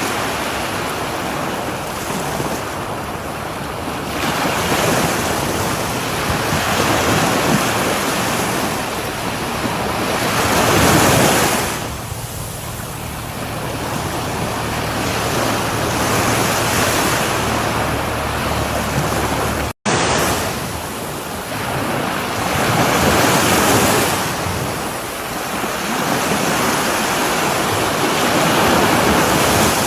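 Sea waves breaking on a shore, the surf rising and falling every several seconds. The sound cuts out for an instant about two-thirds of the way through.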